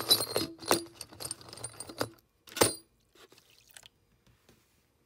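Old steel nail setters clinking against one another and the black plastic tub as a hand lays them into a bath of rust remover: a quick run of small clicks and knocks, with a sharper clack about two and a half seconds in.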